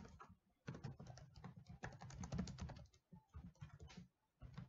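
Faint typing on a computer keyboard: quick runs of keystrokes with a couple of short pauses.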